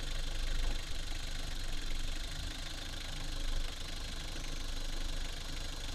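Toyota Lucida's turbodiesel engine idling steadily, heard from beneath the car.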